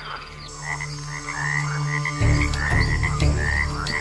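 Frogs calling: short chirping calls repeated several times a second, over a low drone that grows louder about two seconds in.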